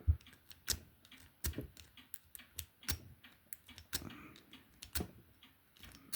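Small sharp metal clicks and taps, irregular and about one or two a second, from a lock pick and tension wrench working in an older American pin-tumbler padlock.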